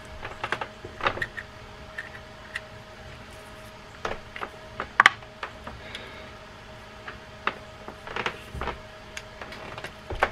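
Small sharp clicks and taps of plastic and metal reel parts being handled and fitted during reassembly of a Daiwa D-Wave spinning reel, loudest about five seconds in.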